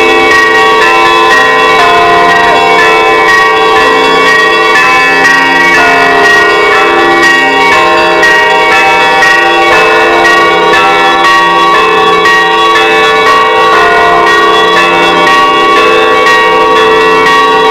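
Russian Orthodox church bells ringing a continuous festive Easter peal (trezvon), with many bells of different pitches struck in quick succession over one another.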